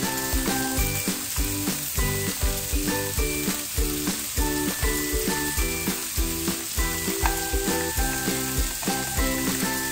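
Background music with a steady beat, over the steady sizzle of mushrooms and rice frying in a skillet.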